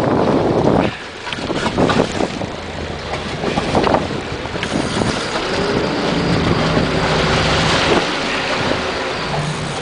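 Sportfishing boat's engine running under a steady rush of wind buffeting the microphone, with crackling gusts in the first few seconds and a faint engine hum showing through partway in.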